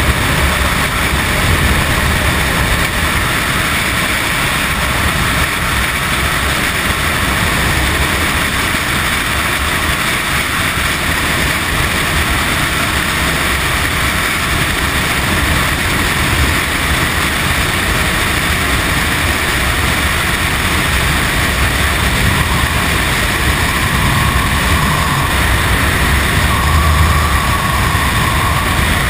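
Freefall wind rushing over the camera's microphone: a loud, steady roar with low buffeting.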